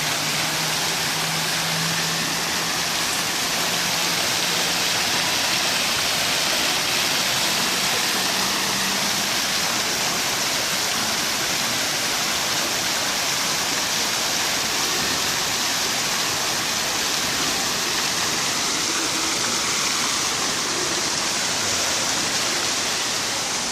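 Water from a large decorative fountain, jets spouting from dragon-head mouths, splashing steadily into its basin as an even, constant rushing hiss.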